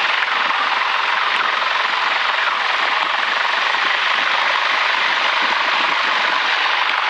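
Grumman light single-engine plane's piston engine and propeller running at low taxi power, heard inside the cabin as a steady, even hissing drone.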